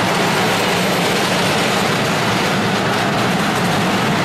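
Loud, steady rumbling scrape of a heavy object dragged over the road surface on chains or ropes, with no break.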